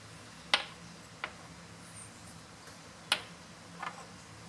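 A steel spoon clinking against small ceramic dishes and a glass mixing bowl as spices and paste are scraped into raw chicken: four short, sharp clinks in two pairs, the first of each pair the louder.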